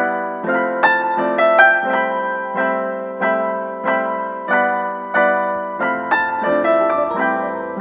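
Background music: a solo piano or electric-piano melody of evenly paced notes.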